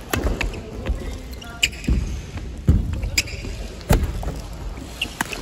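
Badminton rally: sharp racket-on-shuttlecock strikes about a second apart, with shoes squeaking and thudding on the wooden court floor, echoing in a large hall.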